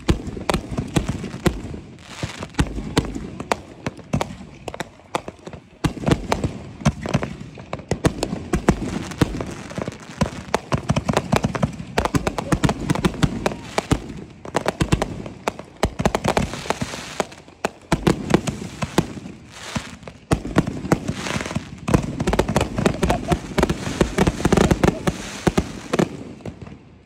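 Fireworks finale: a dense barrage of aerial shells and cakes firing and bursting, many bangs and crackles overlapping without a break, dying away near the end.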